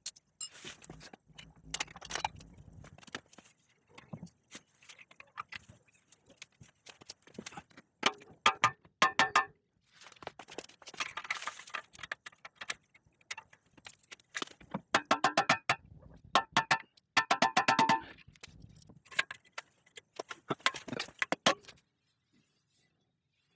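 Hammer striking metal to pound the wedge-shaped eccentric bottom bracket out of a Cannondale tandem's bottom bracket shell. Scattered knocks are followed by several bursts of rapid blows that ring metallically.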